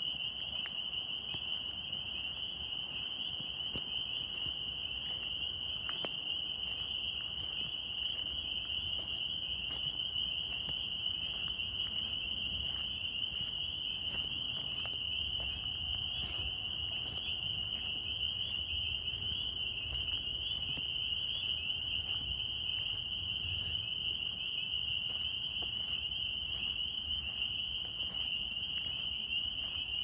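Dense chorus of northern spring peepers: many high peeps overlap into one continuous, steady shrill ringing, with single peeps standing out above it.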